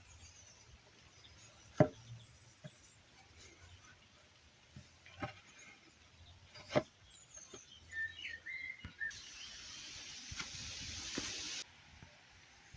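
Three sharp knocks on timber, spaced a few seconds apart, with a few bird chirps after the last. A steady hiss starts about two-thirds of the way in and cuts off abruptly near the end.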